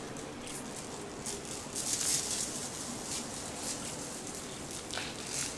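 Light rattling patter of small handheld ASMR props being shaken and tossed near the microphone: scattered short strokes with a louder flurry about two seconds in, over a steady ambience bed.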